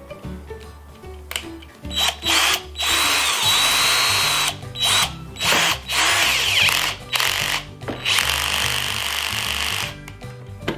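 Parkside PABS 20-Li G8 cordless drill run free in a series of short trigger pulls, its motor whining as it spins up and winds down about six times before stopping near the end.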